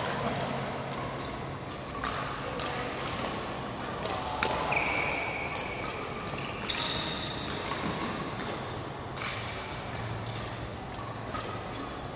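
Badminton rally: sharp racket-on-shuttlecock hits about every two seconds, with short squeals of court shoes on the floor and the reverberant hum of a large sports hall.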